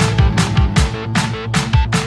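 Runway music: a rock track with guitar over a steady, fast drum beat of about two and a half hits a second.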